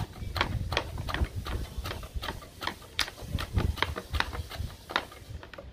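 Peeled cassava root pushed over a stainless-steel mandoline slicer blade, each stroke a short scraping slice, about three strokes a second, as thin chips are cut.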